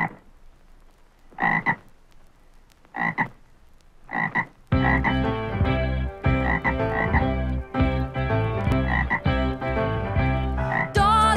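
Frog-like croaks in quick pairs, about one and a half seconds apart, opening a song. About five seconds in, the full band comes in with a steady beat, and the croaks carry on over the music.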